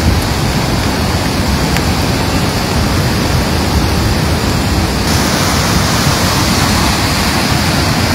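Loud, steady rushing of a flooded river running over its banks, an even roar of water with no pauses.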